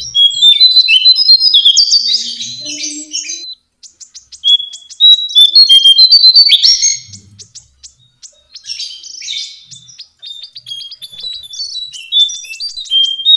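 Lesser shortwing song: three loud phrases of fast, jumbled high chirps and rapid trills, separated by short pauses.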